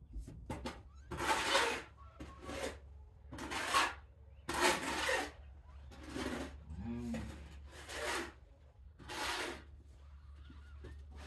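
Young kittens scrabbling and shuffling on their bedding as they try to walk: a string of short rustling, scraping bursts, roughly one every second.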